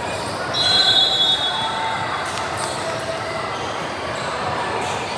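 Basketball game in a gym: steady crowd chatter and echoing hall noise, with a few ball bounces. About half a second in there is a loud, high squeal lasting about a second, from a sneaker on the court or a referee's whistle.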